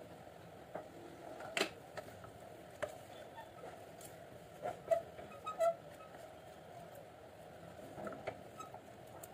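Wooden spatula stirring beef chunks and onions in an aluminium pressure cooker, with scattered knocks and scrapes against the pot, the loudest about a second and a half in and around five seconds in, over a steady low hum.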